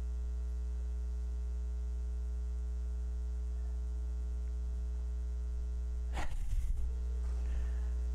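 Steady electrical mains hum, with a brief burst of noise about six seconds in.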